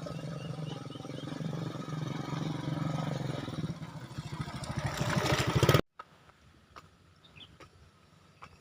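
An engine running with a fast, even pulse, growing louder over the first five seconds and then cutting off abruptly. After that there is a quiet outdoor background with a few faint clicks and short chirps.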